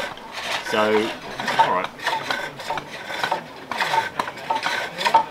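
A hook tool cutting a wooden bowl on a pole lathe: scraping and shaving that comes in repeated strokes as the treadle turns the work back and forth.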